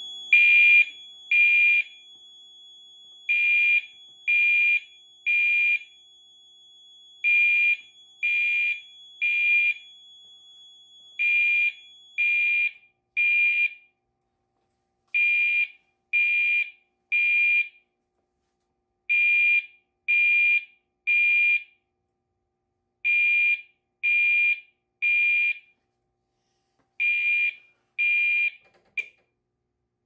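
Mircom FHS-340 fire alarm horn sounding in the temporal three-pulse pattern: three half-second high-pitched blasts, a pause, then three more, over and over, showing that the converted pull station has put the panel into alarm. A steady high tone runs underneath and stops about twelve seconds in, and the horn cuts off mid-blast near the end.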